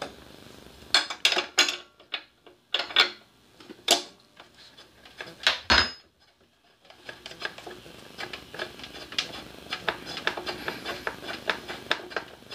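Metal wrench clinking against a small portable generator's spark plug and engine as the plug is loosened: several sharp separate clinks over the first six seconds. After a short pause comes a fast run of light ticks as the plug is unscrewed by hand.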